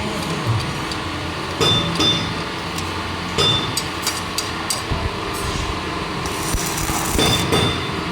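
Metal struck with a hammer several times at irregular intervals, each blow ringing briefly, over a steady workshop noise.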